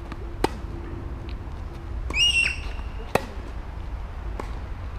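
Tennis racket hitting the ball about half a second in, followed by further sharp ball strikes or bounces a little after three seconds and, fainter, past four seconds. Just after two seconds comes a brief, loud, high squeal that rises in pitch.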